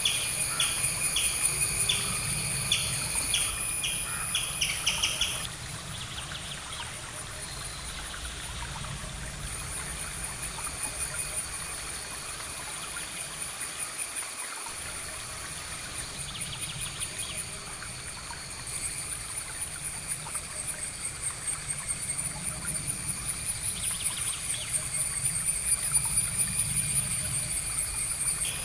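Outdoor insect and bird ambience: a high, steady insect trill runs throughout, while a bird's rapidly repeated call notes come in the first five seconds and again near the end.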